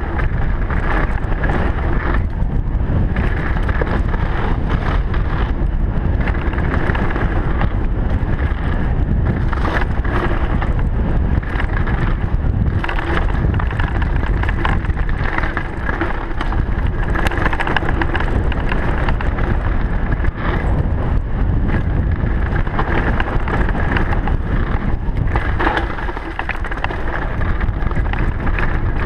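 Downhill mountain bike ridden fast down a dirt forest trail: wind buffets the camera microphone while the tyres run over dirt and stones and the bike rattles with many sharp knocks throughout.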